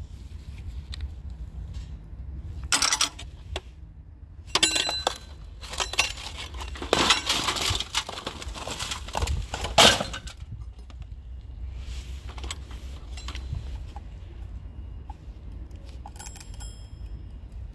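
Metal tools and scrap clinking and clattering as they are handled and shifted in a wire basket, in several rattling bursts between about 3 and 10 seconds in. Near the end comes a short metallic ring, over a steady low rumble.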